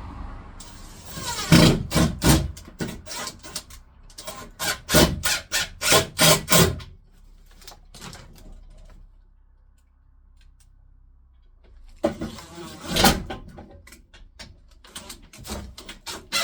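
Runs of sharp, quick knocks at about four a second, in three bursts with a long quiet gap in the middle.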